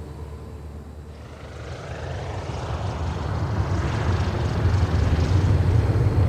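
Aircraft engine noise growing steadily louder as the aircraft approaches.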